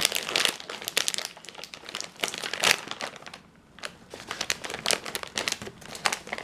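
Crisp packet crinkling as it is handled and opened, in a dense run of rapid crackles with a brief pause about halfway through.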